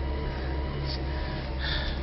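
Steady low rumble of a car's running engine heard inside the cabin, with a faint steady whine and a couple of short soft rustles.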